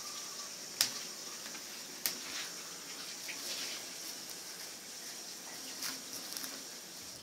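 Bubble wrap popped by squeezing the bubbles between the fingers: three sharp pops spread over several seconds, with fainter pops and the crinkle of the plastic sheet in between.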